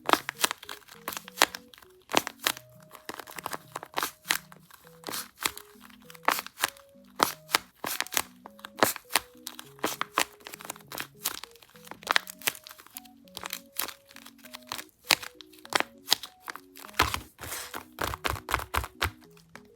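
Paper crinkling and crackling in quick, irregular bursts as it is handled and squeezed, thickest near the end. Soft melodic background music plays underneath.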